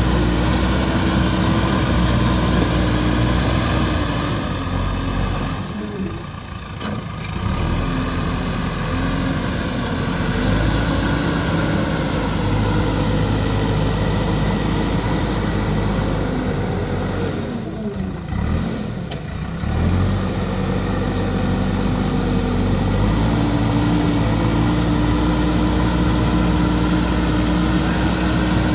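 JCB backhoe loader's diesel engine running under working load, its revs dropping briefly about six seconds in and again about eighteen seconds in, then rising.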